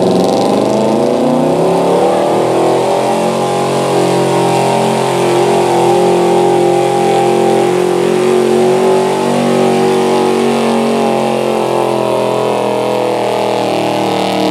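1970 Chevrolet pickup's gas engine at high revs under heavy load as it drags a weight-transfer pulling sled, the pitch climbing over the first few seconds and then holding steady.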